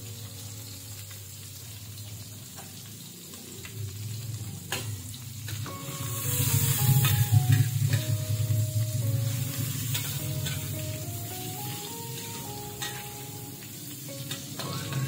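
Dried anchovies sizzling as they fry in hot oil in a wok, stirred with a metal spatula that ticks against the pan. The sizzle swells louder from about six to ten seconds in. Soft background music plays underneath.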